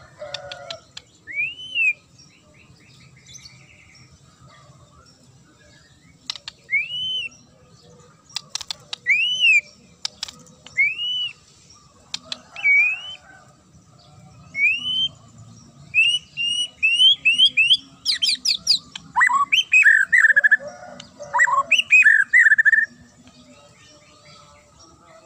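White-rumped shama singing loud, sharp, clear whistled notes, each an arched up-and-down slur, spaced a second or two apart. About two-thirds of the way through they quicken into a rapid run, then break into a burst of varied fast phrases near the end.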